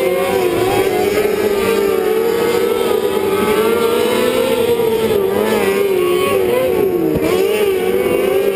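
Several winged outlaw karts' engines running hard at high revs. Their pitches overlap and rise and fall as the karts lap and come through the turn.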